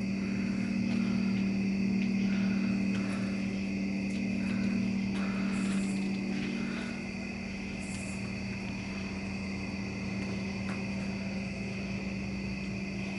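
A steady low machine hum, getting a little quieter about halfway through.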